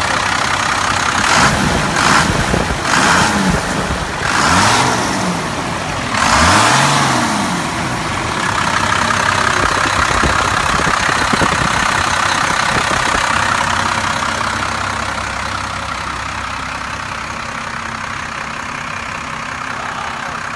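First-generation Dodge Ram's 5.9-litre Cummins inline-six turbo-diesel, revved up and let fall about five times in quick succession, then settling to a steady idle.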